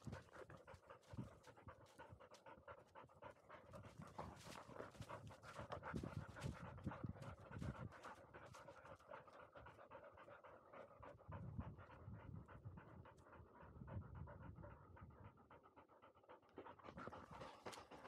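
Labrador retriever panting fast and steadily after a run up a slope, breathing close to a camera strapped to its back.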